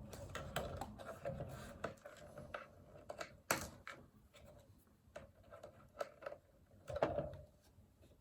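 Small clicks, taps and rubbing from hands working wire and small cable parts, with a sharper click about three and a half seconds in and a few more taps near the end.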